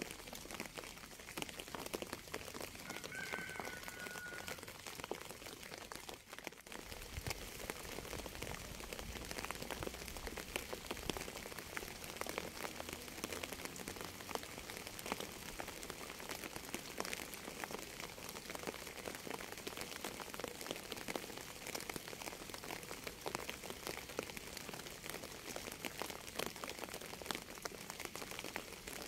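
Steady rain pattering, a dense crackle of many close drops.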